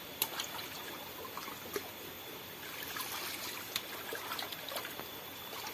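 Water trickling and dribbling steadily, with a few short sharp clicks.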